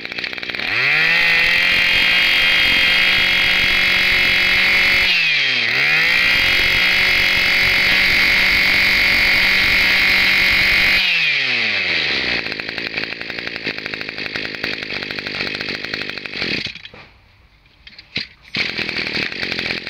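Maruyama 20 cc two-stroke brush cutter engine revved up to full throttle and held there, its pitch dipping once and climbing back about five seconds in. It drops to idle about eleven seconds in and stops near seventeen seconds, with a short burst of sound near the end.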